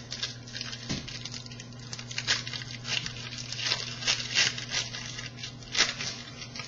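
A trading-card pack wrapper being torn open and crinkled, a run of crackly rustles and small tears, as a pack of hockey cards is opened.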